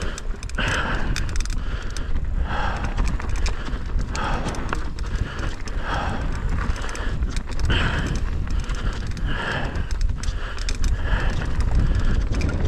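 Rocky Mountain Instinct full-suspension mountain bike rolling down a rough dirt trail: a steady rumble of tyres, chain and frame rattle and wind on the helmet camera. The rider breathes hard through it, in regular breaths about every second and a half.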